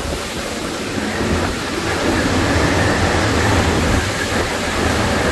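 Hurricane-force wind from Hurricane Ian's eyewall blowing hard and steadily, with a faint high whistle through the middle and gusting a little stronger after about two seconds.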